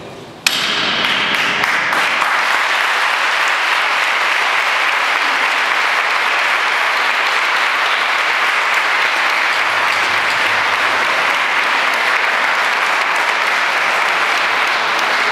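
Crowd applauding, breaking out suddenly about half a second in and holding steady and loud.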